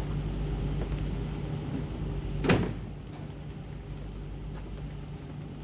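A door shuts with a single heavy thud about two and a half seconds in, over a steady low hum.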